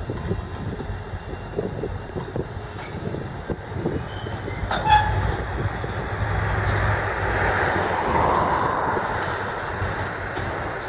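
Train of tank wagons rolling slowly past, wheels and wagons rumbling steadily, with a sharp clank about five seconds in.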